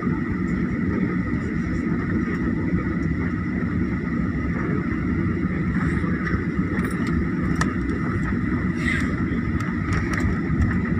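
Steady cabin noise of a Boeing 737 taxiing, heard from a seat over the wing: the jet engines are running at low taxi power, with a low rumble under a constant high whine. A few faint clicks come from the cabin in the second half.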